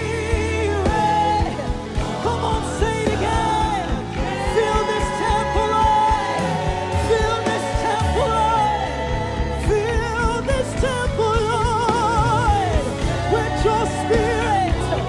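Worship music from a gospel choir and band: voices singing long held notes with a wide vibrato over keyboard and a steady low beat.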